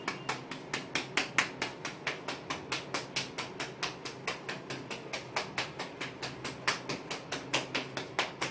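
Rapid, even tapping on the gluteal (buttock) muscles as a massage technique, about four to five sharp taps a second, to loosen tight muscles.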